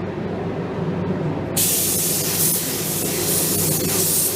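Air-fed primer spray gun spraying plastic adhesion promoter in a light coat: a loud hiss that starts suddenly about a second and a half in as the trigger is pulled, over a steady low hum.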